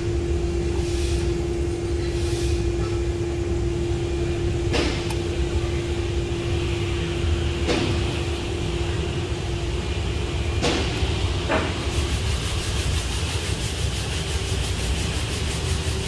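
Steady low workshop rumble with a steady hum that stops about three-quarters of the way through, and four sharp metallic clicks from tools and parts as a new oil pressure switch is fitted to the engine.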